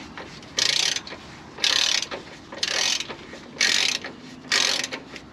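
Socket ratchet clicking on its return strokes, five short bursts about a second apart, as it backs out an already-loosened triple-square bolt on the engine undershield.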